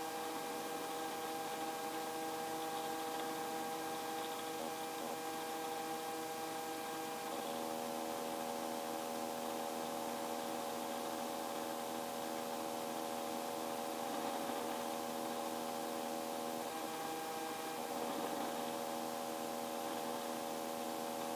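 Light helicopter in cruise flight, heard from the cabin: a steady drone made of several steady tones over a hiss, shifting slightly in pitch about seven seconds in and again near the end.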